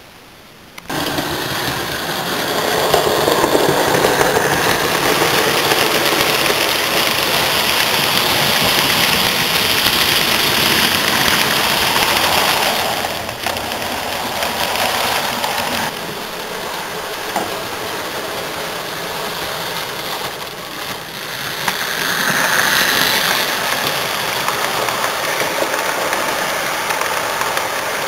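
Hornby OO-gauge Southern Schools class model steam locomotive with a tender-driven motor, running on a layout hauling coaches. From about a second in there is a steady, loud whirr of motor and wheels on rail that swells and fades as the train passes.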